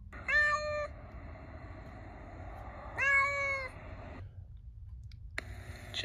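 Domestic cat meowing twice, each meow under a second long, about three seconds apart.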